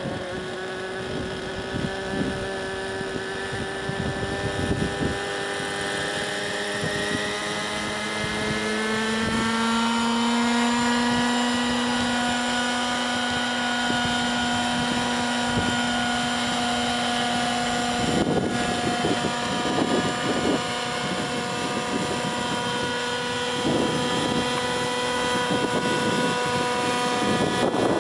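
Radio-controlled scale Airwolf model helicopter running, its engine and rotor whine rising in pitch over a few seconds about a third of the way in, then holding steady as it hovers low. Irregular low rumbles run under it throughout.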